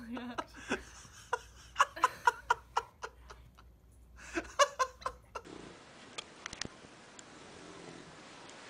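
A baby laughing in a string of short, rapid bursts. About five seconds in the laughter stops abruptly, leaving faint room hiss with a few soft clicks.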